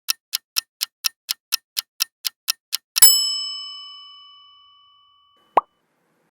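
Quiz countdown timer sound effect: clock ticks about four a second that stop about three seconds in with a bright chime, which rings out over about two seconds. A short blip comes near the end.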